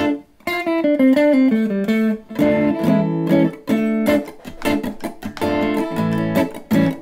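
Line 6 Variax electric guitar played through an amp modelled on a British combo with the gain at about 3 of 10: a mostly clean tone with a slight crunch of distortion starting to come in. He plays a run of single notes stepping down in pitch, then chords.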